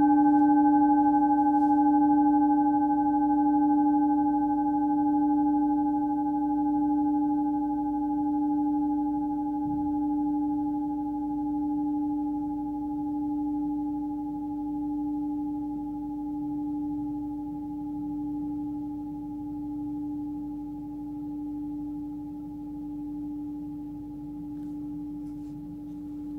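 Forged Tibetan singing bowl tuned to the note D (294 Hz), ringing out after a single mallet strike. One steady tone with fainter higher overtones fades slowly, with an even wavering in volume about once every second and a half.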